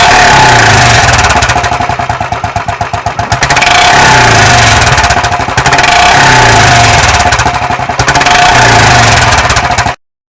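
Royal Enfield motorcycle engine running through an aftermarket exhaust silencer, revved up three times and dropping back to a pulsing idle in between. The sound cuts off suddenly near the end.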